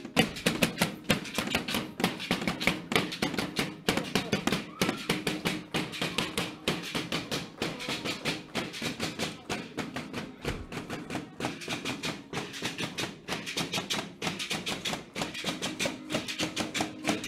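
Dense, rapid, irregular clacking and tapping from a group of costumed devil dancers dancing, with music faint underneath.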